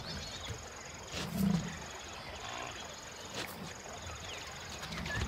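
A few low grunts from a large animal, one about a second in and a weaker one near the end, over a faint steady high insect drone.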